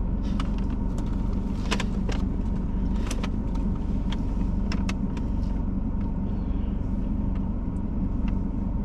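Steady low rumble inside a car cabin, with scattered light clicks and rustles.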